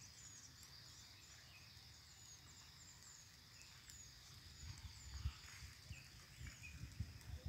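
Faint countryside ambience: a steady high insect drone, with short falling high chirps repeating about twice a second. Low thumps of wind or handling on the microphone grow louder in the second half.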